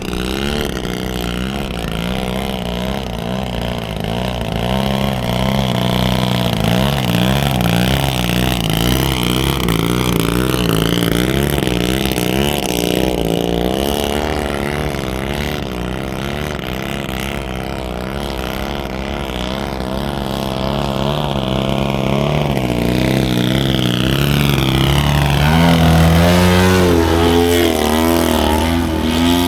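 Engine of a radio-controlled model airplane flying aerobatics, its pitch wavering and gliding up and down as it climbs, dives and passes, with a rise in pitch near the end.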